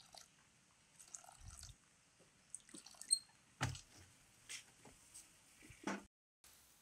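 Water poured from a plastic jerrycan into a metal mixing bowl, followed by a scatter of knocks and clicks as the jerrycan is handled; the loudest is a sharp click about three seconds in with a knock right after it.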